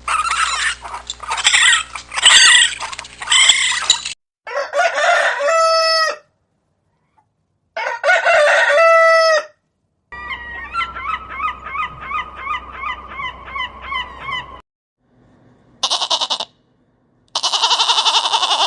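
Chickens: a stretch of hen clucking, then a rooster crowing twice, then a run of quick repeated clucks, with two short calls near the end. The calls come as separate clips with brief silences between them.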